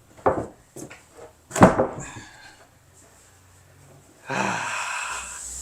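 Several sharp wooden knocks and bangs, the loudest about a second and a half in, then a short quiet spell before a steady rough scraping noise starts near the end.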